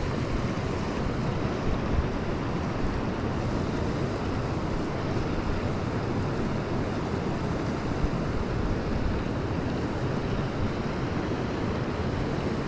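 Steady rush of a fast-flowing small stream, swollen and running quickly after overnight snow.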